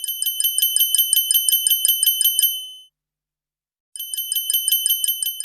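Siemens S6 mobile phone ringing: a rapid trill of high electronic beeps, about six a second, in two rings with a pause of about a second between them.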